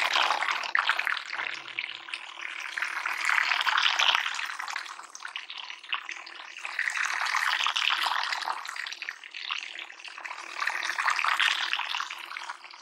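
Water splashing and churning, surging louder and softer, with a faint steady hum underneath.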